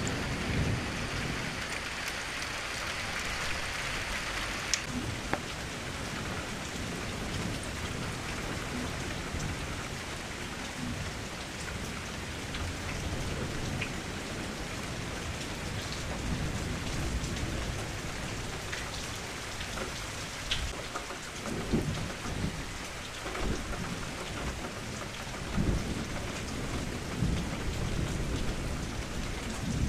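Steady rain falling on a surface, with scattered drop ticks and low rolls of thunder, swelling about two-thirds of the way in and again near the end.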